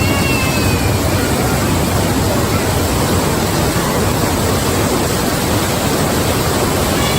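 Loud, steady rush of floodwater in a staged flash flood simulation.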